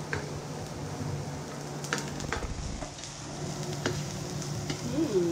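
Chopped onion and garlic sizzling in hot oil in a non-stick frying pan, browning as they are stirred. A plastic spatula scrapes and clicks against the pan a few times.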